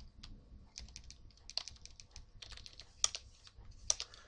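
Computer keyboard keys pressed in quick, irregular succession, a run of light clicks with a few louder strokes about one and a half, three and four seconds in.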